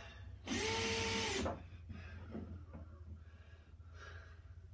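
Power drill run once for about a second, its motor spinning up, holding a steady whine and winding down.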